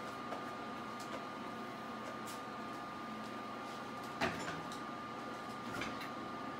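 Steady kitchen background hum with a faint constant high whine, broken by a few light clicks and knocks, the sharpest about four seconds in.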